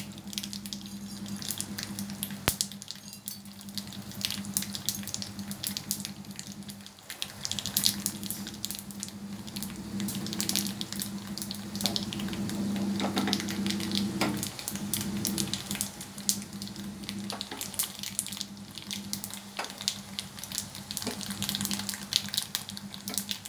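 Hot oil sizzling and crackling in a small tadka pan on a gas burner as chana dal and urad dal fry with mustard seeds, curry leaves and a dried red chilli: the tempering for coconut chutney. A steady low hum runs underneath.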